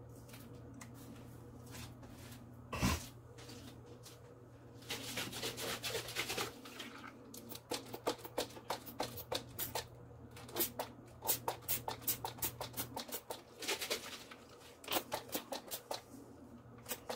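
Fine-mist spray bottle of mica powder in rubbing alcohol being pumped over wet acrylic paint: a quick series of short spritzes, several a second. A single thump comes about three seconds in.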